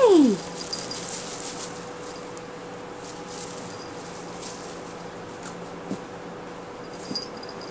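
Soft, scattered rustling and light clicks as a foil-streamer wand toy is dragged over a blanket during kitten play, busiest in the first two seconds, over a steady faint hum.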